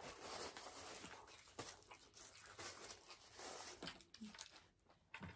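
Faint eating sounds at a table: the soft rustle of a paper napkin and quiet chewing, with a few small clicks.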